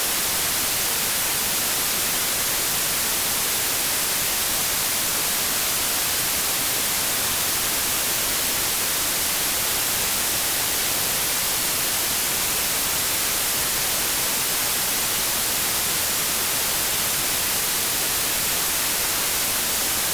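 Steady hiss of analogue TV static from a television tuned to no signal, an even rushing noise with no change.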